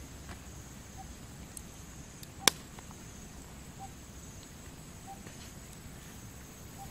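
Steady outdoor background with a thin high-pitched tone held throughout and faint short pips every second or so, broken once by a single sharp click about two and a half seconds in.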